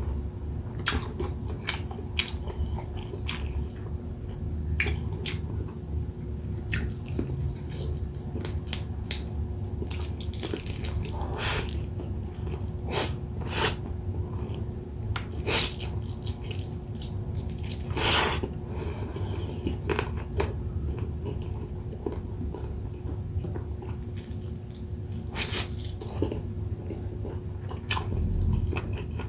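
Close-miked eating: a person biting into and chewing grilled chicken inasal and rice, with irregular wet smacks and sharp bites scattered throughout.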